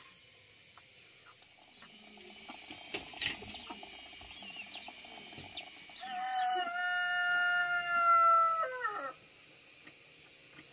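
A rooster crows once: one long, loud call that holds its pitch for about two and a half seconds and drops at the end. Before it, a few seconds of short chirps and clucking.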